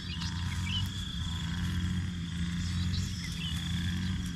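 A steady high insect drone, cricket-like, with a few short scattered chirps over it and a low steady hum underneath.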